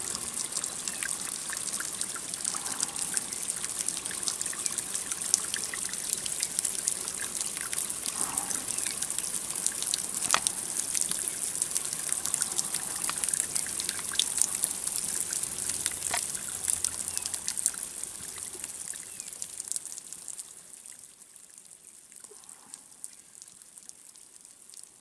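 Water trickling steadily, with a few sharp clicks; the sound grows fainter about twenty seconds in.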